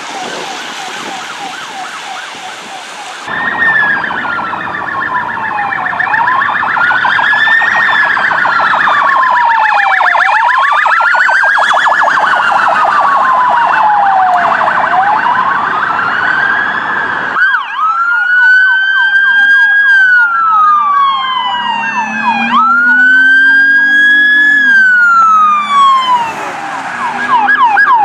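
Emergency vehicle sirens. First a fast warbling yelp. From about three seconds in, a slow wail rises and falls over a rapid warble. From about seventeen seconds, long wails each rise quickly and fall slowly, and the fast yelp returns near the end.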